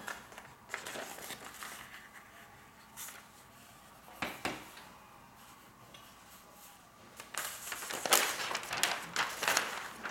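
Paper rustling and crinkling as a sheet of silicone release paper is peeled back from a mounted rice-paper painting and the stiff mounted sheet is handled. A few short crackles come first, then a denser, louder spell of rustling over the last few seconds.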